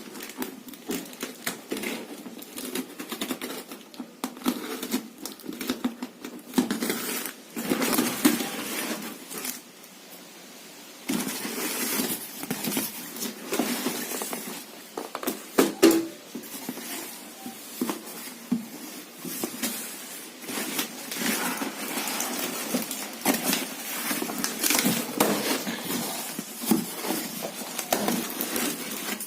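Handling noises of a ceiling fan being unboxed: irregular rustling, crinkling and knocking of cardboard and plastic packaging, busier and louder from about ten seconds in.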